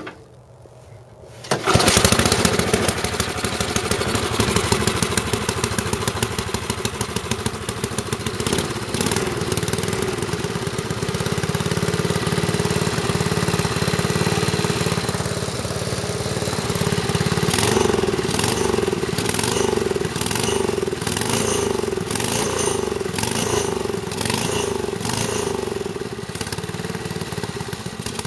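Rebuilt wood chipper's gasoline engine, pull-started after sitting eight or nine years: it catches about a second and a half in and keeps running, its throttle stuck half open. From about the middle on, the running swells and fades in a regular beat.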